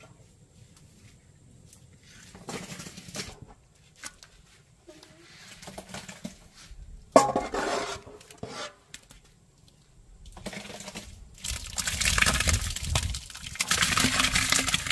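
A small metal pot scraping and knocking against the inside of a large aluminium pot as thick banana mash is scooped out, with one sharp clank about halfway through. Near the end comes the louder wet slopping and splashing of the mash being poured into a plastic bucket.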